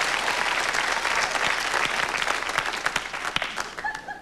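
Studio audience applauding, a dense spread of hand claps that thins out and fades away near the end.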